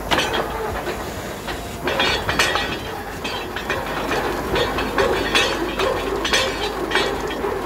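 Truck-mounted borewell drilling rig running as it bores: a steady loud mechanical din with sharp metallic clanks every second or so.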